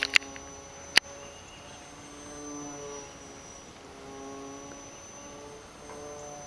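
Radio-controlled model airplane's motor and propeller humming as the plane flies overhead, the pitch drifting gently up and down. A few sharp clicks near the start and another about a second in.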